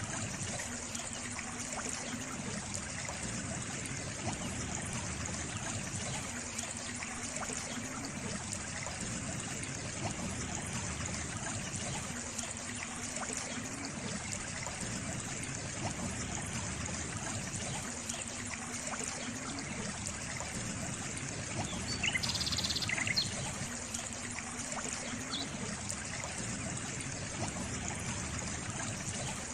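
Water trickling steadily, as from a small stream. A bird gives a few short, high chirps about 22 seconds in.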